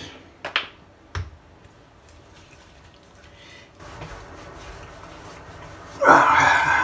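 Hands rubbing aftershave balm into the face and beard. A few light clicks come in the first second or so, soft steady skin-on-skin rubbing starts about four seconds in, and a louder, rougher rub follows near the end.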